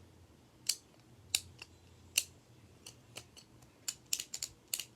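Sharp plastic clicks of a Beyblade Burst top being twisted by hand against its burst-stopper teeth to test its burst clicks. A few separate clicks come first, then quicker clicks near the end. The clicks are judged only decent, a sign of a top that bursts easily.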